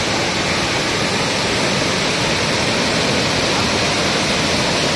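Floodwater rushing over the open spillway gates of a dam and crashing into the churning water below: a loud, steady rushing noise.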